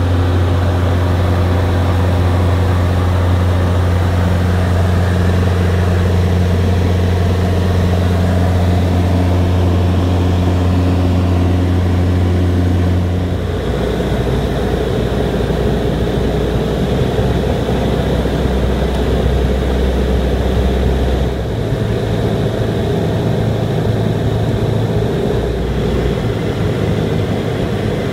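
Jabiru 170 light aircraft's four-cylinder engine and propeller droning steadily, heard from inside the cockpit. About 13 seconds in the drone drops abruptly to a lower pitch and shifts again a little later, as the plane comes in low over a dirt airstrip to land.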